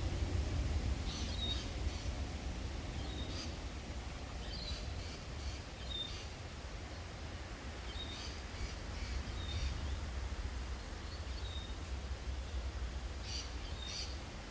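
Small birds calling in bushland, short high chirps repeated every second or two, over a steady low rumble.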